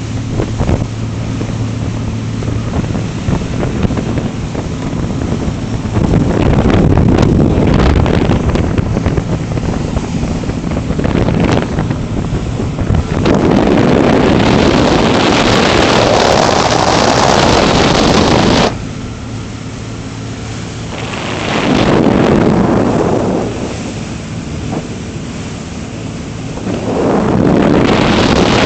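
Crew boat under way: its engine hums steadily beneath rushing water and wind buffeting the microphone. The rush swells and fades in several surges and drops suddenly about two-thirds of the way through.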